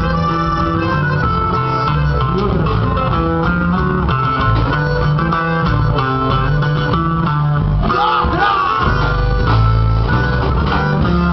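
Live conjunto band playing: a button accordion carries a reedy melody over a bajo sexto, electric bass and drums.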